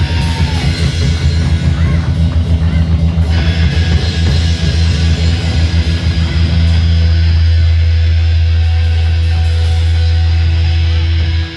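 A live rock band plays loud on electric guitar, bass and drum kit, with a driving beat. About two-thirds of the way through, the beat stops and the band holds one ringing low chord, which breaks off briefly near the end.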